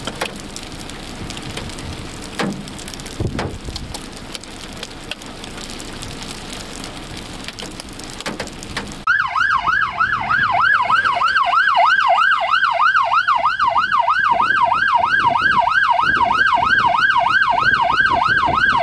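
A steady rush of rain and wind noise with a few knocks. About halfway through it gives way to a loud police siren in a fast yelp, rising and falling about two to three times a second.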